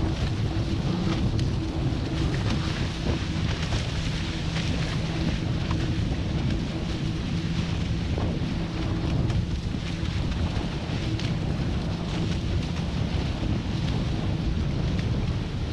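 Wind buffeting the microphone and water rushing along the hull of a Hobie 16 catamaran sailing at about 13 mph, a steady rumble with a faint low hum underneath.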